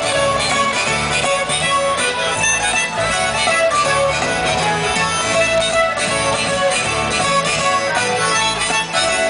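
Live acoustic folk band playing an upbeat instrumental introduction: contrabass balalaika and acoustic guitar under a held lead melody, with a steady beat.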